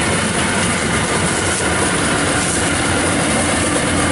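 Yanmar rice combine harvester running as it cuts rice: a steady, loud drone of its diesel engine and working machinery.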